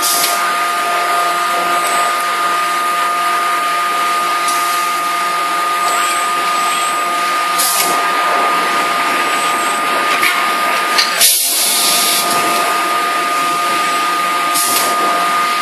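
Steady machinery running with two steady whining tones, from a robot-fed die-forging hammer cell. Short hissing bursts come every three to four seconds, the longest about eleven seconds in. No hammer blow is heard.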